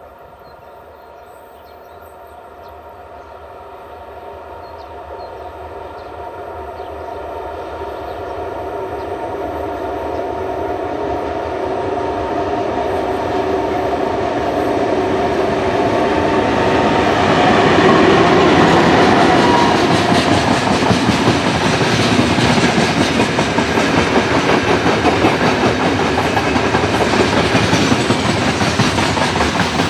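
Two-section 2TE116 diesel freight locomotive approaching with its engines working, growing steadily louder until it passes about eighteen seconds in. A string of covered hopper wagons then rolls by with a rapid clickety-clack of wheels over the rail joints.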